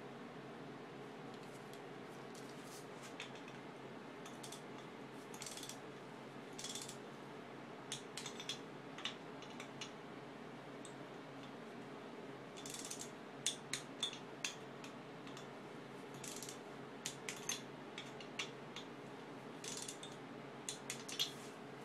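Torque wrench ratcheting in short runs of sharp clicks as the cylinder head nuts are tightened down, over a faint steady hum.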